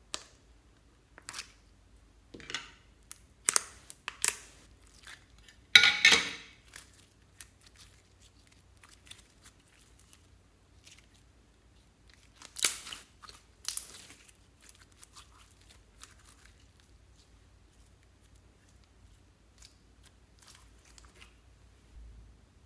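Sharp clicks and snaps of a plastic slime container being pried open, then sticky crackling and squelching as slime is pulled out by hand, loudest in a short burst about six seconds in and again around thirteen seconds. Later handling is quieter.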